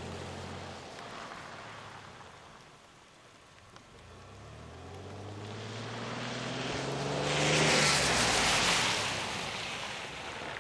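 A vehicle's engine fades away in the first second. Then an SUV approaches on wet pavement: its tyres hiss on the wet road, loudest about eight seconds in, and its engine note falls as it brakes to a stop.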